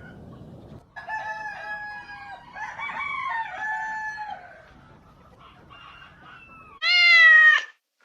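A rooster crowing, a drawn-out cock-a-doodle-doo of several held notes. Near the end a domestic cat gives one loud, short meow that rises and falls.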